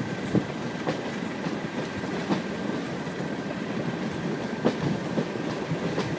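Passenger coach running along the line, heard from an open window: a steady rolling rumble of wheels on rail, with a few sharp clicks over rail joints and a faint steady high whine.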